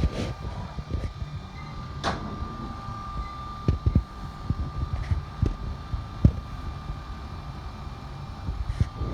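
CNC vertical machining center running: a sharp click about two seconds in, then a steady high whine that holds, over irregular low knocks.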